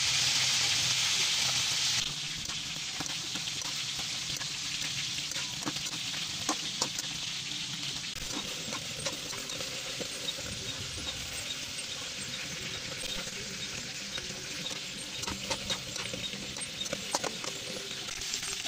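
Fish frying in oil with a loud hiss for about two seconds, then a quieter sizzle of bitter melon and egg being stirred in a wok, with a metal spatula scraping and clicking against the pan.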